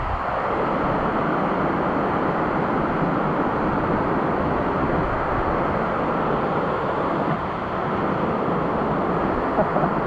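Steady rushing roar of a waterfall cascading down a rock face and splashing into a pool.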